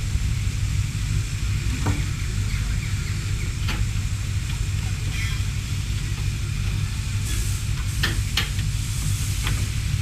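Fowler steam ploughing engine in steam, giving a steady hiss over a low rumble as it edges down the trailer ramps. A few sharp metallic knocks come about two, four and eight seconds in.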